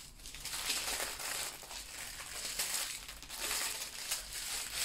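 Small plastic bags of diamond-painting drills crinkling and rustling irregularly as they are picked up and handled.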